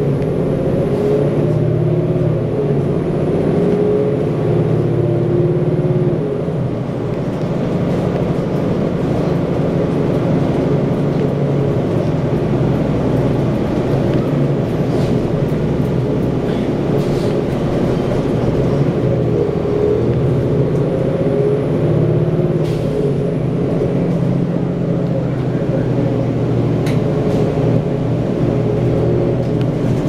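Orion VII Next Generation transit bus's Cummins ISL diesel engine, heard from inside the passenger cabin while the bus drives. The engine pulls steadily, eases off about six or seven seconds in, and pulls again around twenty seconds in, with a faint high whine over it while it pulls. A few light knocks and rattles come from the body.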